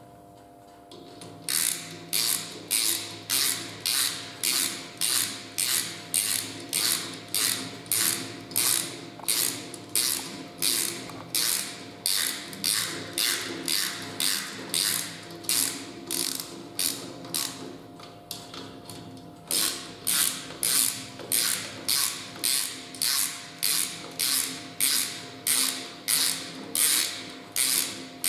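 Ratchet wrench with a socket clicking in steady back-and-forth strokes, about two a second, as crankshaft main bearing cap bolts are run down. It starts about a second and a half in and pauses briefly about two-thirds of the way through, as at a move to the next bolt, before going on.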